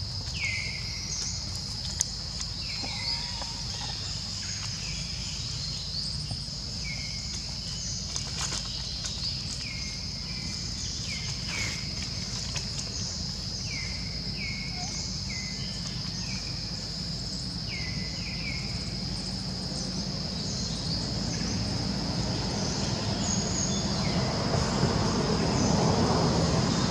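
Outdoor ambience: a steady high insect drone, with a bird giving short falling calls again and again, over a low rumble that grows louder toward the end.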